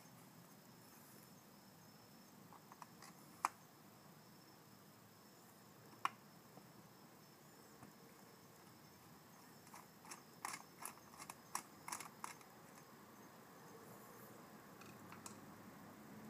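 Near silence with a few faint, scattered clicks and taps of handling, then a quick run of small clicks about ten seconds in.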